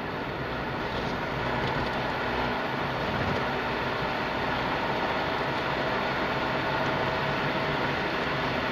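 Steady engine and tyre noise of a car driving along a city street, heard from inside the cabin, a little louder from about a second in.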